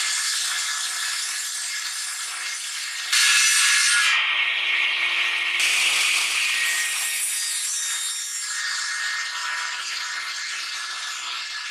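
Sliding table saw running and cutting through a thick laminated block of Jarrah and Blackwood hardwood: a steady, loud sawing noise over the hum of the saw, with sudden jumps in level about three seconds in.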